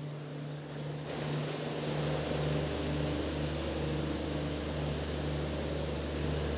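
Steady mechanical hum of a standing passenger train's coaches at a platform, from their air-conditioning and electrical equipment: a low hum that gets louder about two seconds in, under a tone that pulses on and off in an even rhythm.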